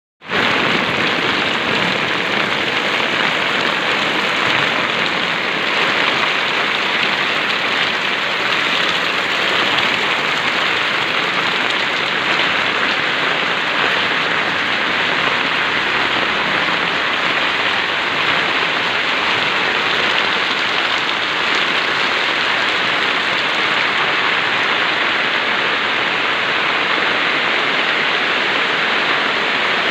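Heavy rain pouring down, a steady, even hiss of falling water.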